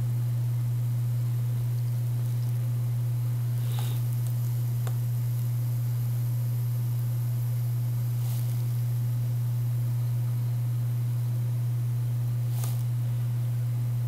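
A steady low electrical hum, the loudest thing throughout, with a few faint crackles of flux and solder melting on a soldering iron tip on a circuit-board joint.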